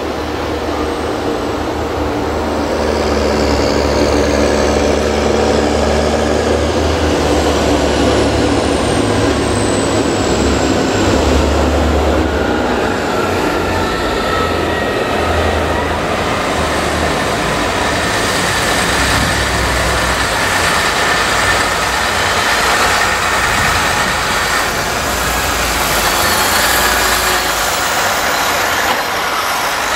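Several farm tractors' diesel engines running at a maize silage clamp, their revs shifting as they push and tip the chopped maize, with a high whine that glides down about ten seconds in.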